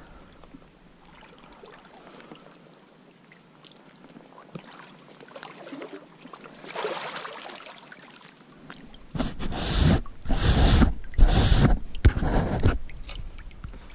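Water splashing and sloshing in several loud bursts in the last few seconds, as a big brown trout is landed and thrashes in the net, after a stretch of faint creek hiss.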